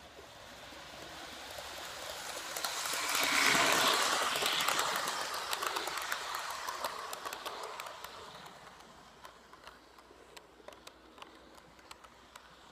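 A model Amtrak passenger train rolling past on its track. The rumble of its wheels swells to a peak a few seconds in, then fades as the cars go by, with a run of sharp clicks through the second half.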